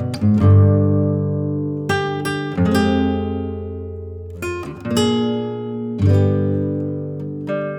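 Background music: acoustic guitar, chords strummed and left to ring out, a new chord roughly every second or two.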